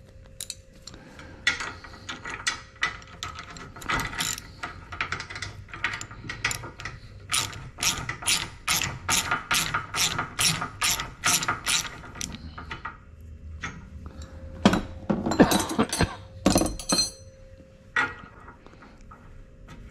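Socket ratchet wrench clicking as it is worked back and forth on a bolt through a Power Pole arm, at about three clicks a second through the middle. A few louder metal clatters follow near the end.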